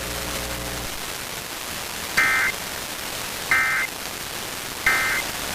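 Three short, high-pitched bursts of NOAA Weather Radio SAME digital data, the End of Message code that closes the severe thunderstorm warning broadcast, about 1.4 s apart over steady radio hiss. A low hum cuts off about a second in.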